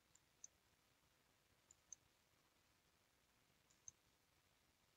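Faint computer mouse clicks: three quick press-and-release pairs about two seconds apart, over near silence.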